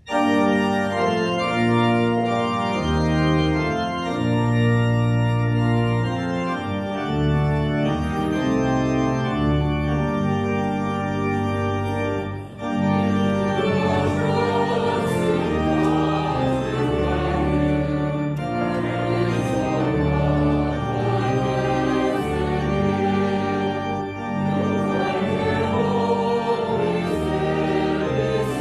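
Church pipe organ playing a hymn, starting abruptly with sustained chords; about halfway through, voices join in singing with the organ.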